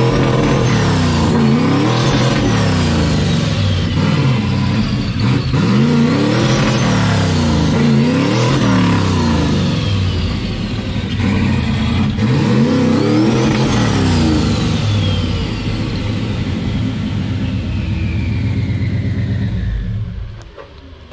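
Turbocharged 5.9 L Magnum V8 of a 1951 Dodge one-ton truck revving up and down about five times, the GT45 turbo's whistle climbing and falling with each rev. Later the revs ease off more slowly, and the sound drops away just before the end.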